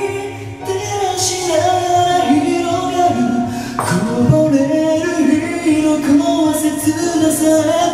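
A man singing a Japanese song into a handheld karaoke microphone over the song's backing track.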